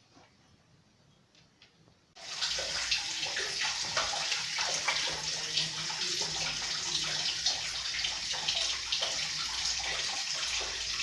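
Water pouring steadily into a washing machine tub, starting suddenly about two seconds in after near silence.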